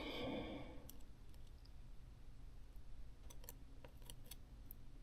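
Faint, scattered light clicks, about half a dozen, of small plastic and metal phone parts being handled and fitted inside an open Pixel XL, over a low room hum.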